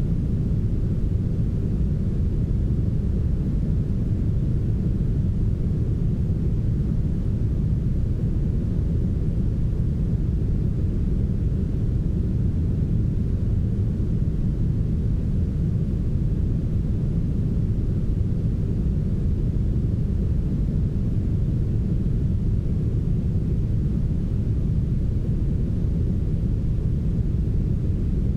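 Smoothed brown noise: a steady, deep hiss with its weight in the bass and almost nothing in the treble, unchanging throughout.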